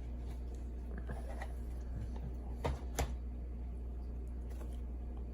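Faint rustling of paper and plastic packaging being handled, with two light clicks close together a little past halfway, over a steady low hum.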